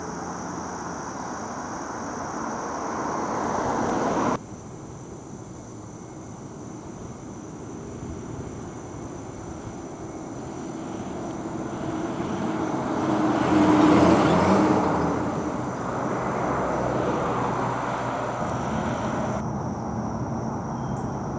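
A motor vehicle passing by. Its noise swells to a peak about two-thirds of the way through, then fades. Earlier, another stretch of traffic noise builds and cuts off abruptly about four seconds in.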